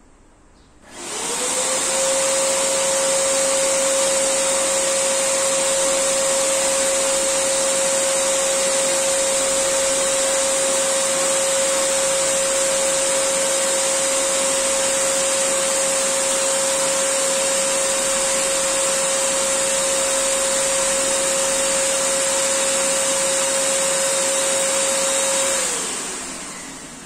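Electric air pump inflating an inflatable boat's tube through a hose. It spins up with a quick rising whine about a second in, runs steadily with a hiss of rushing air, and winds down with a falling pitch near the end.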